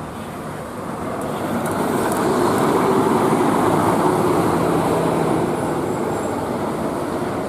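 A bus driving past close by. Its engine and tyre noise swell over the first few seconds and then slowly fade as it goes by.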